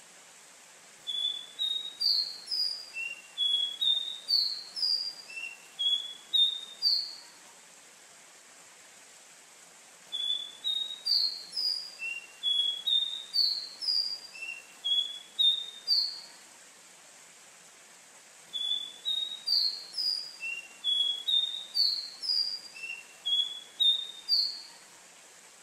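A caboclinho, a Sporophila seedeater, singing three phrases of quick, rising, slurred whistled notes, each phrase about six seconds long, with a faint steady hiss in the gaps between them.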